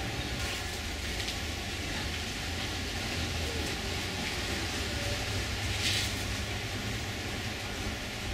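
Steady low rumble and hiss of background noise, with a few faint short clicks.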